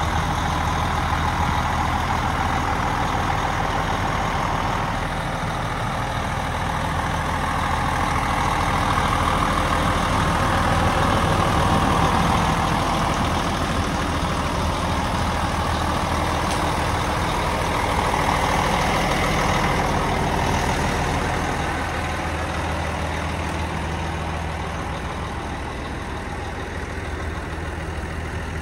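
Diesel engine of a Foden Alpha 3000 6x4 tractor unit idling steadily, a little louder about ten seconds in and quieter toward the end.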